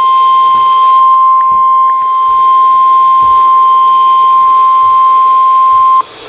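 NOAA Weather Radio warning alarm tone, the 1050 Hz alert signal that announces an emergency weather message, here a severe thunderstorm watch. A single loud, steady tone that cuts off about six seconds in, leaving radio hiss.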